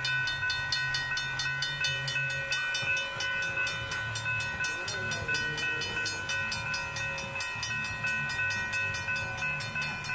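Railroad grade-crossing warning bell ringing rapidly and steadily, about four to five strikes a second, each strike leaving a bright ringing tone. It is the crossing signal's warning that a train is approaching.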